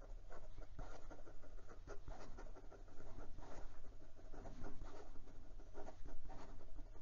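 Pelikan M800 fountain pen's gold nib scratching across notebook paper in quick cursive writing, a continuous run of short, uneven pen strokes.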